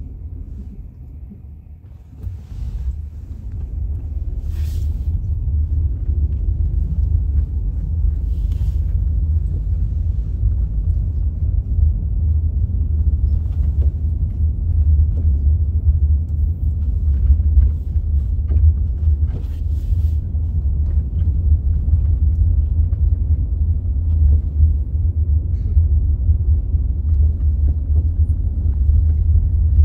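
Low, steady rumble inside the cabin of a 2003 New Flyer D40LF diesel transit bus under way. It is quieter for the first two seconds, then rises and holds, with a few faint clicks or rattles.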